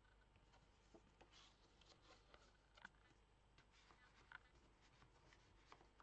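Faint rustling and soft ticks of paper and card being handled: a card tag slid into its pocket and the pages of a handmade paper folio moved, with two slightly sharper ticks midway.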